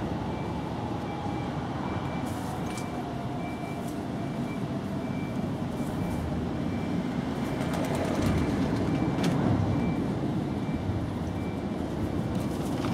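A steady low rumble, louder for a couple of seconds past the middle, with a few faint clicks.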